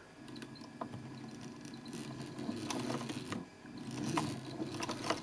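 Pfaff 230 sewing machine on its home-built motor drive, stitching slowly through six layers of vinyl. The motor hums steadily, with sharp clicks from the needle mechanism every half second or so.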